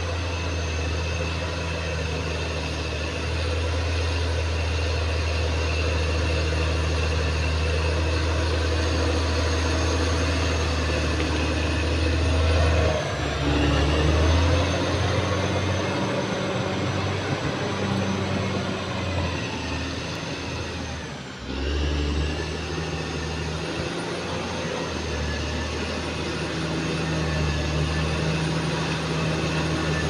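Caterpillar D6R XL bulldozer's diesel engine running steadily under load. Its note dips briefly twice, near the middle and about two-thirds through.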